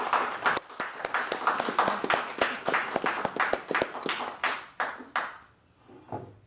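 A small group clapping, with separate claps easy to pick out, dying away about five seconds in.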